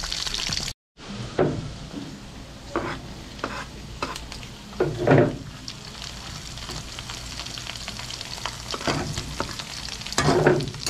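Pork pieces and garlic sizzling in oil in a metal wok, stirred with a metal spatula that scrapes the pan several times, loudest about five seconds in and again near the end. The sound cuts out for a moment just under a second in.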